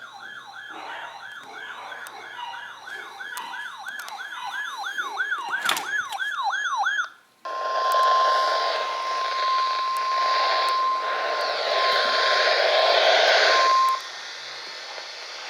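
Weather radio alert: a siren-style tone sweeping up and down, speeding up, for about seven seconds. After a brief break, the steady 1050 Hz NOAA Weather Radio warning alarm tone plays over loud radio static and cuts off about two seconds before the end, leaving low hiss. Together they announce an incoming warning broadcast.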